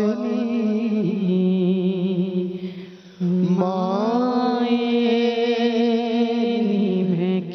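A man singing a Punjabi naat, drawing out long held notes with vibrato. The voice fades away about three seconds in, then comes back on a rising note that is held almost to the end.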